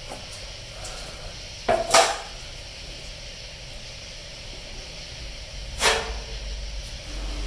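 Body filler spreader scraping filler onto a truck's sheet-metal fender and mixing board: two short scrapes, about two seconds and six seconds in, over a low steady shop hum.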